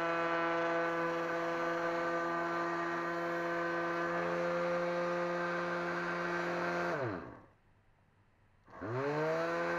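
Dremel rotary tool motor driving the tool rest's cutter, running with a steady whine. About seven seconds in it winds down, its pitch falling to silence, then spins back up near the end, its pitch rising to the same steady speed.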